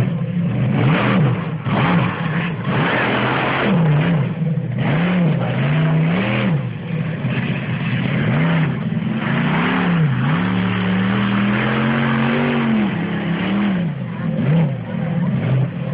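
Raminator monster truck's engine revving up and down over and over, its pitch swooping repeatedly, with one longer held rev about two-thirds of the way through.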